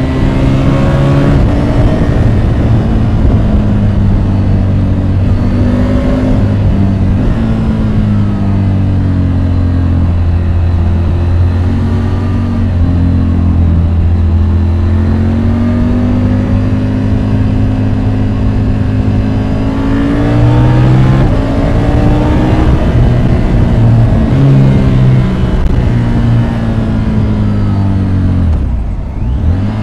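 Triumph Tiger 850 Sport's three-cylinder engine, heard from on board while riding: it rises and falls in pitch several times as the bike accelerates, shifts gear and eases off, with wind and road noise underneath. There is a short dip near the end.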